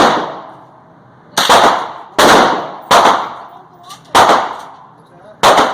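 Five gunshots, irregularly spaced roughly a second apart, each with a ringing tail.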